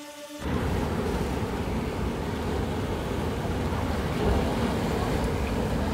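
Steady rushing noise of strong wind on the microphone, starting abruptly about half a second in, right after a held musical intro tone cuts off.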